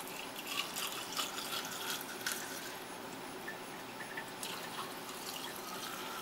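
Liquid being poured out of a plastic container through a funnel into a glass waste bottle, trickling and splashing. The spent potassium hydroxide solution is being emptied and the container rinsed with ultrapure water. Scattered light clicks and knocks of the plastic containers being handled, mostly in the first couple of seconds.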